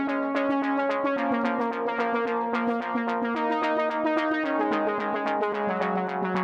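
Background electronic synthesizer music: quick, evenly repeated notes over a bass line that steps to a new note every second or so.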